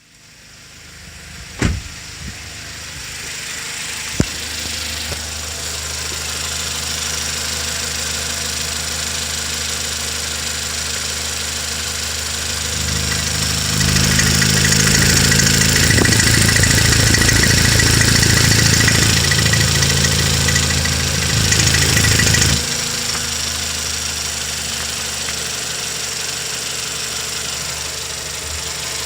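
Toyota Camry 2.0 6AR-FSE inline-four engine running, with the knock that the owner reports in this engine at 22,000 km. Two sharp clicks come in the first few seconds. Midway it runs louder for about eight seconds, then settles back to idle.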